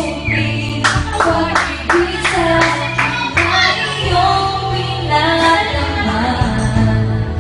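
A woman singing a ballad into a microphone over a backing track, with a few sharp percussive hits in the first few seconds.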